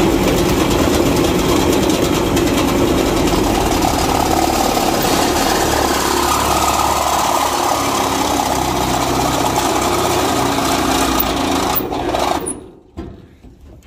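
A power drill running steadily under load as it drives a screw up through sheet metal from underneath. It stops suddenly about twelve seconds in, as the screw point breaks through the surface.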